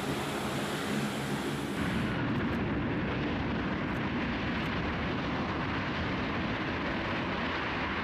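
Turboprop engines of an AC-130 gunship running on the ground, a steady propeller drone. About two seconds in, this gives way to the even engine noise of a Lockheed C-5M Super Galaxy's turbofans as the big transport rolls down the runway.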